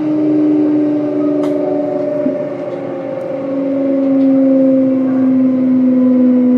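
Hitachi GTO-VVVF inverter and traction motors of a Kintetsu 1031 series train whining as the train slows, the tones falling steadily in pitch with a step about three seconds in, over the rumble of the running gear.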